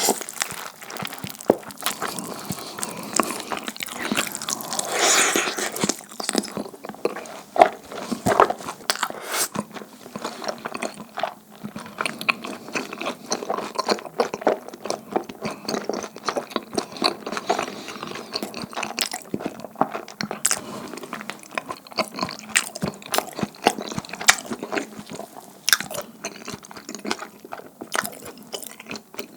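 Close-miked eating sounds: biting into and chewing sticky, chewy dumpling hotteok, with many quick, irregular mouth clicks and a louder stretch of bite noise about five seconds in.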